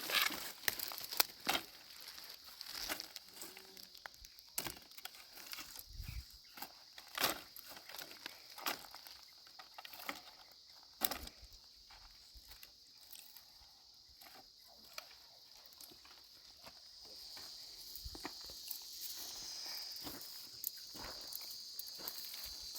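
Insects chirping steadily outdoors in a high, even drone that grows louder in the second half, with scattered short clicks and knocks from nearby handling or steps.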